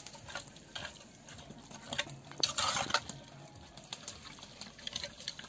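A metal spoon stirring chunks of seasoned goat meat in a large aluminium pot, with scattered clinks and scrapes against the pot. A louder stretch of stirring comes about two and a half seconds in and lasts about half a second.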